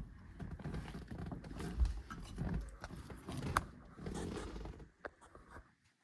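Handling noises with low rumbles and scattered sharp clicks: a replacement ignition lock barrel being worked and pushed into its housing in the steering column. The sound dies away near the end.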